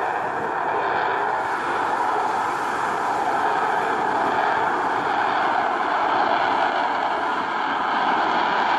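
An F-16 Fighting Falcon fighter jet's engine roaring as the jet flies past overhead: a steady rushing noise that grows a little louder.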